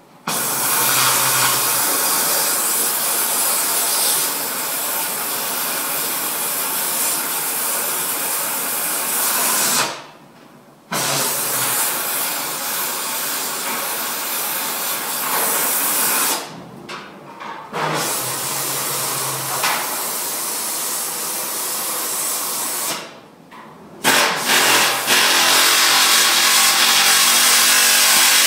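Loud, steady hiss from a chassis-shop tool, running in four long bursts that each start and stop abruptly.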